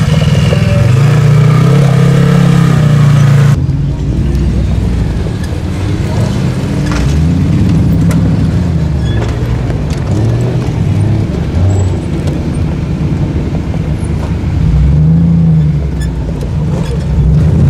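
Off-road vehicle engines revving and dropping back as they crawl over rocky mounds. The sound changes abruptly about three and a half seconds in, from a side-by-side UTV's steady engine to a tube-frame rock buggy's engine rising and falling in repeated bursts of throttle.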